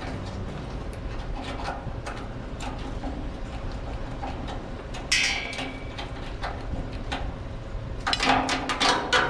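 Steel plate on an excavator boom being knocked and worked loose after torch cutting: faint scattered clinks and scrapes, a brief rasping noise about five seconds in, then a rapid run of sharp, loud metal knocks near the end.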